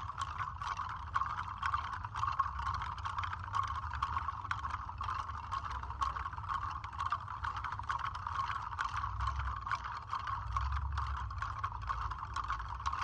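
Bellwood seed rattles shaken steadily, a dense, even patter of small dry clicks, over a low rumble.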